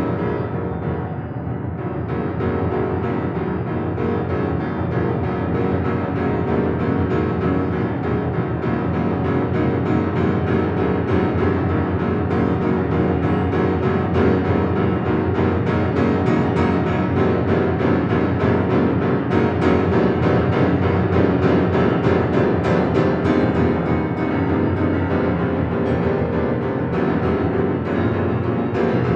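Solo piano playing a dense, rapid, low-register texture of repeated cluster chords that imitates the clatter of cotton-mill machinery.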